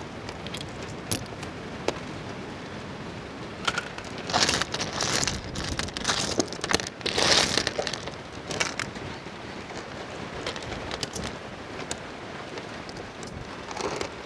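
Boiled clam shells clicking and clattering as they are prised apart by hand and handled in a heap of empty shells, with louder rattling bursts about four and seven seconds in.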